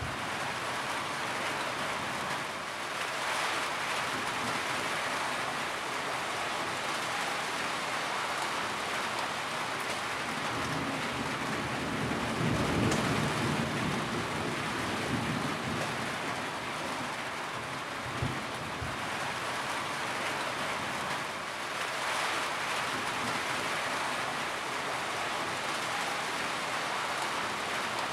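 Steady rainfall with a low rumble of thunder swelling about halfway through and a brief low thump a little later.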